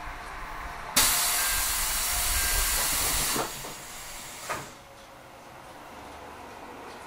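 A sudden loud hiss of compressed air being vented from the JR 373 series train's pneumatic system, lasting about two and a half seconds, then dropping to a softer hiss that dies away with a short clunk.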